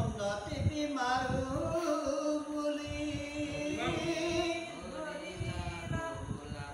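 A man chanting scripture verses from a book to a slow, drawn-out tune. He holds long notes and steps between a few pitches, with short breaths between lines.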